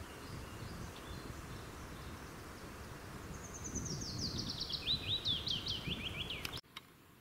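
A songbird sings one fast phrase of many short notes that steps down in pitch from high to lower as it goes, over a steady background rustle. The sound cuts off abruptly just before the end.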